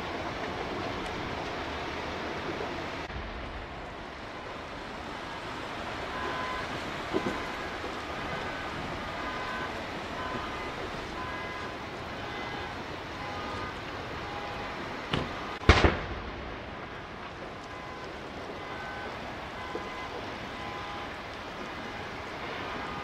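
Steady noise at a large warehouse fire with fire engines, with faint short beeps at several pitches. A sharp pop comes about seven seconds in, and two louder bangs come about fifteen and sixteen seconds in.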